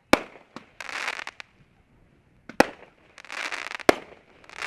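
Consumer fireworks going off: three sharp bangs, each followed about half a second later by a short spell of dense crackling.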